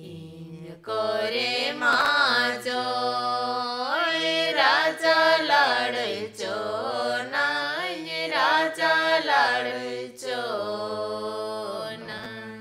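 Khadia Durang folk song: a voice sings long held notes that glide up and down, over low accompanying notes that change every few seconds. It is quieter for about the first second, then the voice comes in fully.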